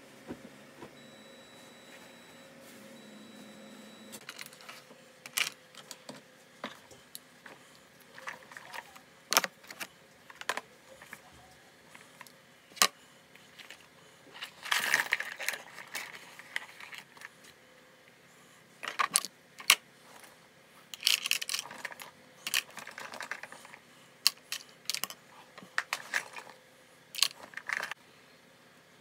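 Intermittent clicks and clatter of small objects, such as plastic containers, bottles and toiletries, being picked up and set down on a wooden desk, in short clusters.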